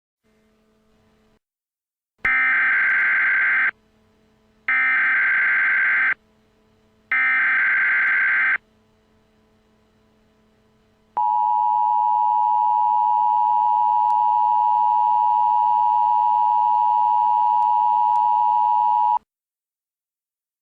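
Emergency Alert System tones: three bursts of warbling SAME header data tones, each about a second and a half long, then the steady two-tone attention signal for about eight seconds. They signal an alert that is about to be read, here a child abduction emergency.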